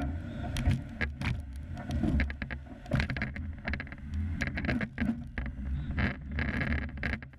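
Jeep engine running at crawling speed on a rough off-road trail, a steady low rumble with frequent irregular knocks and rattles.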